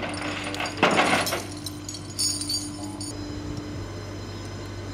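Metal tow hook and chain rattling and jingling as they are handled, loudest about a second in, with a bright jingle a second later, over the steady hum of an idling tow truck engine.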